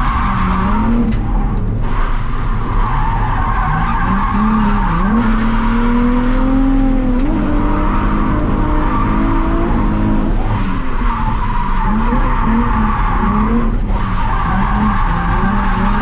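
Nissan 350Z engine revving up and down while drifting, with tyres squealing through the slides, heard from inside the cabin. The revs climb and hold high through the middle, then drop away and rise and fall again near the end.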